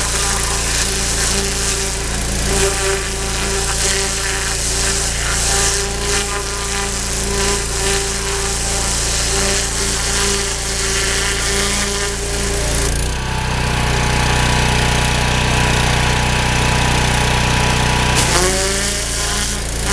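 A 3000 psi pressure washer with a turbo nozzle spraying a deer hide: a steady machine drone under the hiss of the water jet. About thirteen seconds in the hiss drops back and the machine's note changes for about five seconds, then the spray hiss comes back with a short rising whine.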